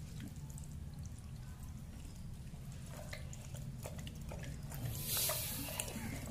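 Hands kneading and rubbing a thick wet spice marinade into a whole raw chicken in an iron wok: soft wet squelches and smacks, with a louder squish about five seconds in, over a steady low hum.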